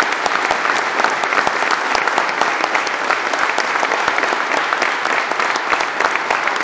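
Crowd applauding: dense, steady clapping of many hands.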